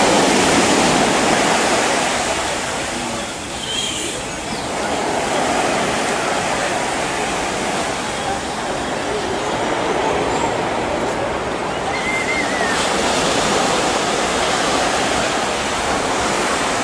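Steady rushing wash of small waves breaking on a sandy beach, swelling and easing slowly.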